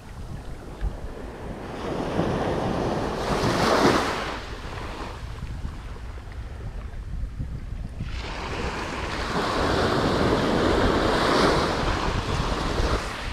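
Ocean surf breaking and washing up a sandy beach in two swells, a shorter one about four seconds in and a longer one in the second half. Wind rumbles on the microphone throughout.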